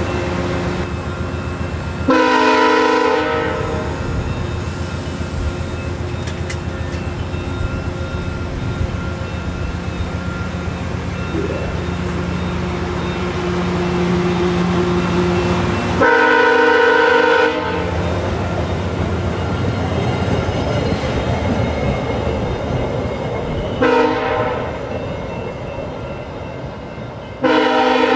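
Horn of a departing VIA Rail GE P42DC diesel locomotive sounding the grade-crossing signal: long, long, short, long, the last blast still going at the end. Between blasts, the locomotive's diesel engine and the wheels of the passenger cars rumble steadily as the train pulls away.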